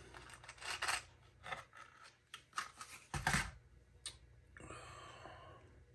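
Quiet clicks, taps and rustling of small tackle, such as treble hooks, being handled while a spinner is assembled, with a louder knock about three seconds in and a short soft rustle near the end.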